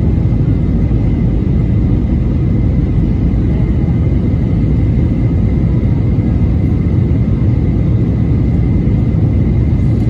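Cabin noise of a jet airliner in flight, heard from a window seat: a loud, steady low rumble of engines and airflow, with a faint steady high whine.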